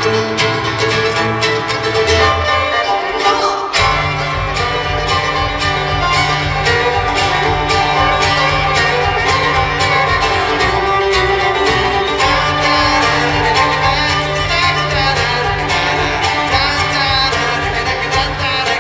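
Live bluegrass string band playing: mandolin, fiddle, banjo, acoustic guitar and upright bass, with the upright bass coming in strongly about four seconds in.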